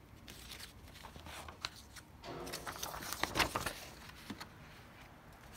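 Paper and cardboard being handled: rustling with light clicks and taps, busiest from about two to four seconds in.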